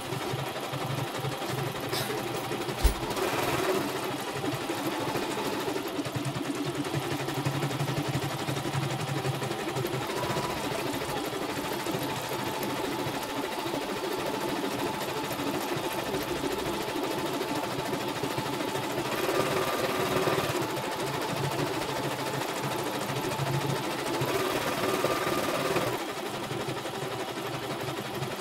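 CNY computerized embroidery machine running steadily while stitching out a design, louder in a few stretches, with one sharp thump about three seconds in. This is a test run after servicing: the machine stitches stable with no thread breaks.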